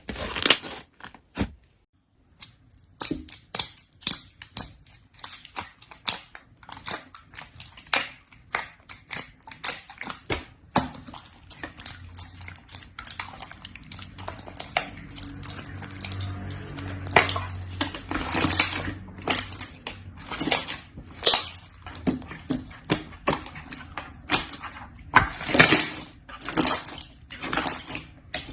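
Slime being squished and pressed by hand: a dense, irregular run of sharp clicks and crackles, with a low hum for several seconds in the middle.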